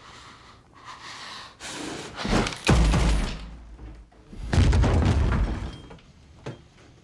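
Two loud booming gunshots from a blaster pistol, about two seconds apart, each with a deep rumbling tail. The first swells up just before it hits.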